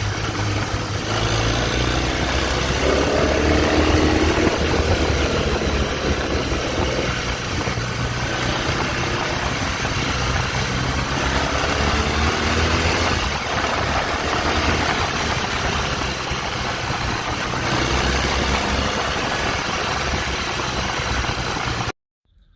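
BMW GS motorcycle engine running while riding, its pitch rising and falling with the revs, under steady wind rush. No windscreen rattle can be heard: the worn windscreen pins have just been secured. The sound cuts off suddenly near the end.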